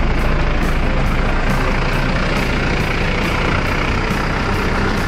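Engine of a portable fire pump running steadily at speed.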